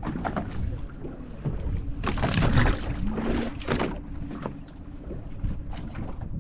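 Wind buffeting the microphone and water lapping against a small boat's hull at sea. About two to four seconds in there is a louder spell of splashing and knocking as a small fish is lifted over the side on a handline.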